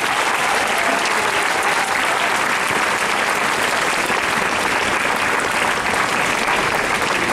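Crowd applauding: dense, steady clapping from many people.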